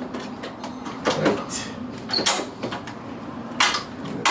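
Wire connectors being pushed into an air conditioner's control board by hand, with several short scrapes and clicks of plastic and wiring.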